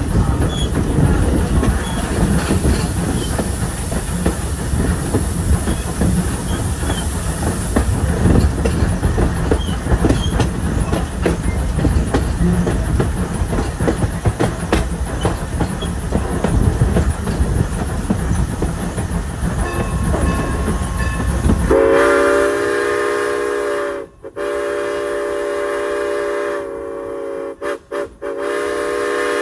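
Train coaches rumbling and clacking along the rails behind Norfolk and Western 475, a 4-8-0 steam locomotive. About 22 seconds in, a steam whistle starts blowing a long, steady chord, with a few brief gaps near the end.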